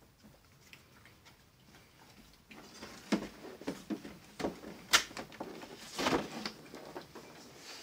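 A white board knocked and scraped as it is shifted by hand at the opening of a dog bed enclosure: quiet at first, then a run of irregular knocks, clicks and scrapes from about two and a half seconds in, the sharpest click near the middle.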